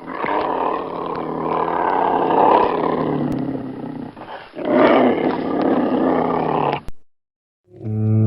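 A large animal's two long, low calls: the first lasts about four and a half seconds, and the second, shorter one cuts off abruptly.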